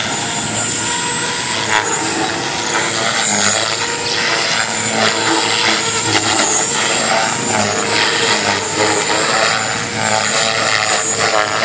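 Radio-controlled model helicopter in flight, a steady whine from its motor and rotors that wavers up and down in pitch as it manoeuvres.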